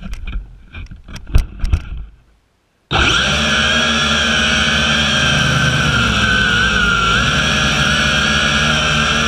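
Knocks and bumps as the drone is handled, then about three seconds in the Zoopa Q650 quadcopter's motors and propellers start abruptly into a steady whine with a slightly wavering pitch, heard from the GoPro mounted on the drone.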